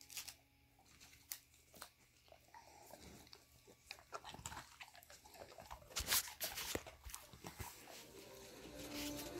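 A dog chewing and crunching a treat at close range, with irregular crunches and clicks, the loudest about six seconds in.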